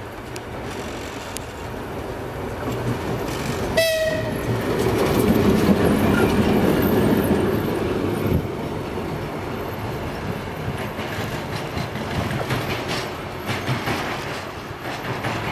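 TEM18DM diesel shunting locomotive passing close by: a short horn toot about four seconds in, then its diesel engine running loudest as it goes past and fading as it moves away, with wheels clicking over the rail joints.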